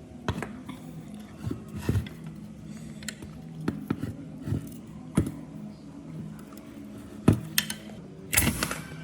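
Scattered metallic clicks and knocks of tools and small parts being handled during the strip-down of an old circular saw, with a brief scraping rasp near the end over a low steady hum.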